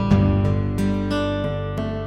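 Intro music: strummed acoustic guitar, with chords ringing on and a new strum about two seconds apart.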